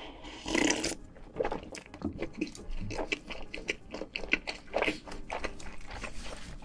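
Close-miked eating sounds: a gulp of cola from a glass about half a second in, then chewing with many short, irregular mouth clicks and crackles.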